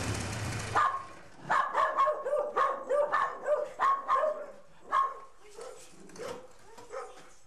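1974 Norton 850 Commando's parallel-twin engine (bored to 900) running, then shut off abruptly under a second in. A dog then barks: a quick string of short barks, more spaced out in the last few seconds.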